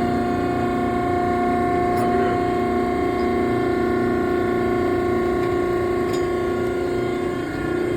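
Baler's hydraulic pump motor running with a steady hum of several tones, its pitch dipping briefly near the end.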